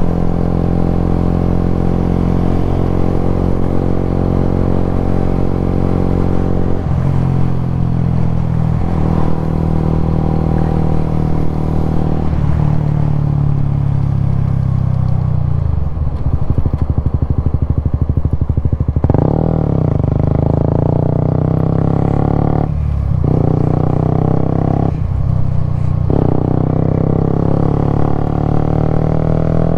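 Suzuki GSX-S125's single-cylinder 125 cc engine running on the move. Its note drops and settles to a low putter around the middle, then picks up again with changing pitch and two brief dips in the engine sound later on.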